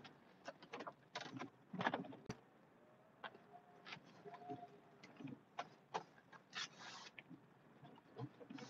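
Faint, irregular clicks and knocks from a plow truck pushing snow, heard from inside the cab, with a faint short squeal about four seconds in.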